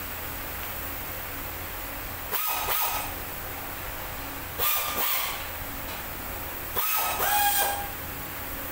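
Three short bursts of hissing, each carrying a thin whistling tone, over a steady low hum.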